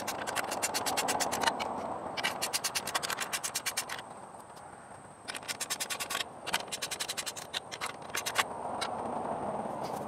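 Ratchet wrench clicking in quick, even runs while tightening a clamp around a pole, four runs with short pauses between them.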